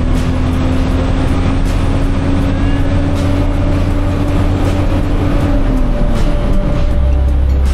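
Farm truck's engine running with a loud, deep steady drone; a steady tone in it falls away about six seconds in, as the engine slows.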